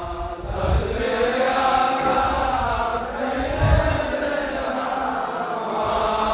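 Many men's voices chanting together in unison, a slow, drawn-out devotional chant, over a low rumble that swells about two-thirds of the way through.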